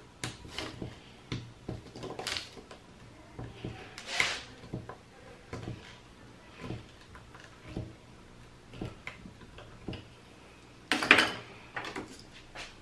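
Small metal hand tool scraping and picking at a broken screw in a circuit breaker's screw terminal: irregular clicks and short scrapes, with a louder clatter about 11 seconds in.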